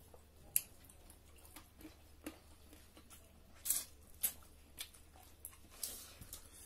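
Eating by hand: wet chewing and lip smacks, with fingers squishing curry and rice on plates. A scattered series of short, sharp smacks, the loudest about four seconds in, over a steady low hum.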